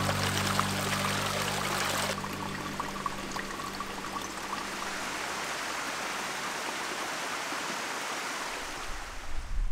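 Mountain stream water rushing and splashing, loud for about two seconds. It then cuts to a softer, steady rush of water that fades near the end.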